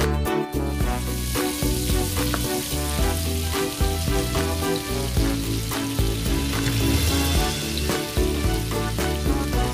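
Butter frying in a wok, a steady sizzle as it melts and foams, starting about a second in. Background music plays underneath.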